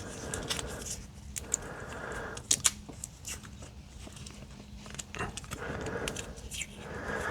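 Electrical tape being pulled off the roll and wrapped around a bundle of wires, with scattered crackles and sharp clicks of handling over a faint steady hum.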